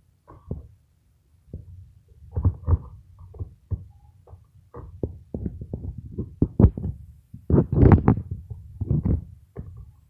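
Neon yellow-green slime squeezed and squished in the hands right at the phone's microphone: irregular clicks and pops over a low rumble, busiest about three quarters of the way in.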